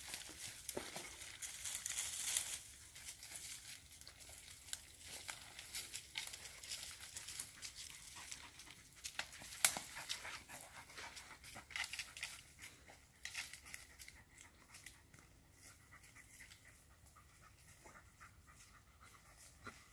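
A dog panting close by, mixed with irregular rustling and crunching of footsteps in dry leaf litter and the crinkle of a plastic bag.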